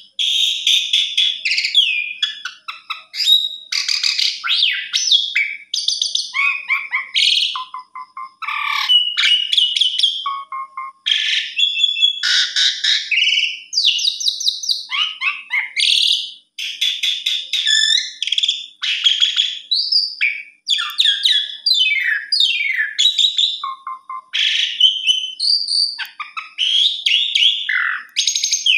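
Asian pied starling (jalak suren) singing a long, varied song of rapid clicks, clear whistles, sliding notes and harsh raspy notes, phrase after phrase with only short breaks.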